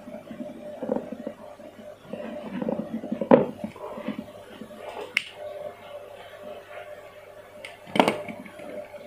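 Hands handling plastic tubing and an aquarium power head's cable, rubbing and rustling, with three sharp clicks: one a few seconds in, one about five seconds in and a loud one near the end. A faint steady hum runs underneath.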